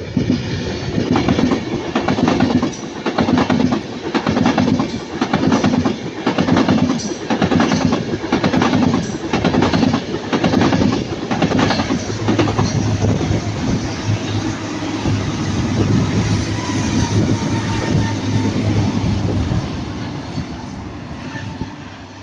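A train passing close by, its wheels clacking in a steady rhythm over the rail joints for about the first half. A steady low hum takes over after that and fades toward the end.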